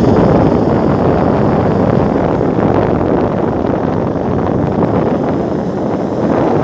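Steady rushing of muddy floodwater flowing across fields, mixed with wind buffeting the phone's microphone.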